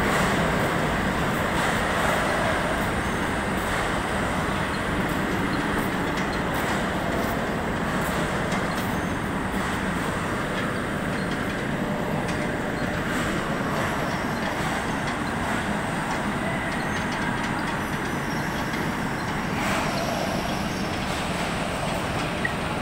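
Steady, even mechanical noise with no clear rhythm.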